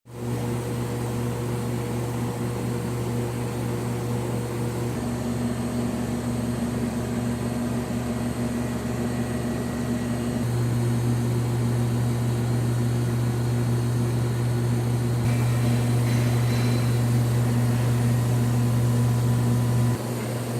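Steady low electrical hum with a faint whir from a running CM Furnaces 1710FL box furnace heating up. It gets a little louder about halfway through and drops suddenly just before the end.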